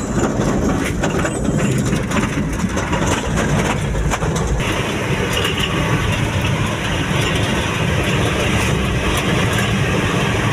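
Pickup truck running on the road, with engine and road noise heard from inside the cab; the sound changes abruptly about four and a half seconds in, after which a steady hiss is added on top.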